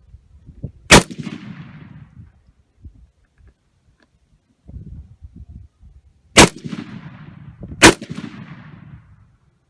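Three rifle shots from a Browning 1918 A3 semi-automatic rifle: one about a second in, then two more about a second and a half apart near the end, each followed by a rolling echo.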